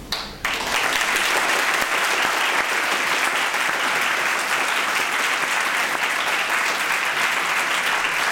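Audience applauding, a steady sustained round of clapping that starts suddenly about half a second in.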